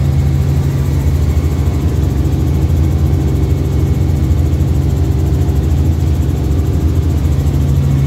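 Helicopter in flight, heard from inside the cabin: the engine and rotor make a loud, steady low drone with a fast, even flutter.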